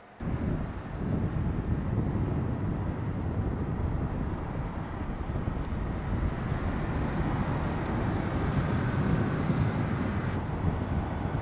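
Mercedes-AMG GT's twin-turbo V8 running at speed, a dense low rumble mixed with wind noise, cutting in abruptly just after the start.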